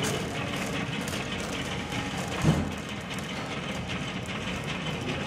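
Candy-making machinery running with a steady, regular mechanical clatter. One louder thump comes about two and a half seconds in.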